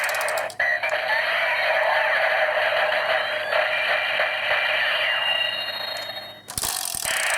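Electronic sound effect from a Kyoryuger DX toy's small built-in speaker, set off by the Pteragordon Jyudenchi battery. It is tinny with no bass and runs continuously for about six seconds, then cuts off suddenly near the end.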